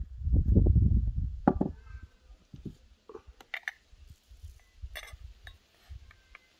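A low, muffled rumble for about two seconds as a small porcelain bowl is handled over a water-filled enamel basin, with a knock partway through. Then a metal spoon clinks and scrapes against the inside of a porcelain jar in a string of light clicks as salt is scooped out.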